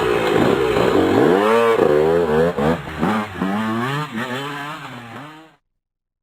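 Motorcycle engine revving, its pitch rising and falling several times. It fades and cuts off about five and a half seconds in.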